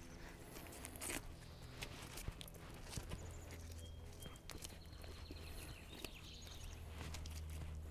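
Feathers being pulled by hand from a scalded chicken: irregular small snaps, rips and rustles as handfuls of wet feathers come away from the skin.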